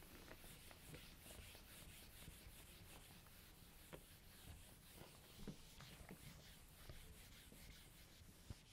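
Whiteboard eraser wiping across a whiteboard: faint, repeated rubbing swipes with a few light taps.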